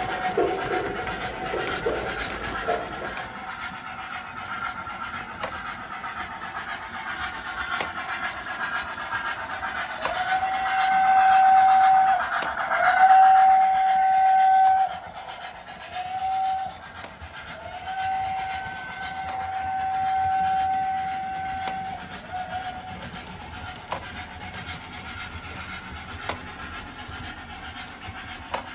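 MTH O-gauge USRA steam switcher's sound system playing a steam whistle: a run of long and short blasts on one steady pitch, over a background steam hiss. Irregular chuffing fades out in the first three seconds, and faint clicks recur throughout.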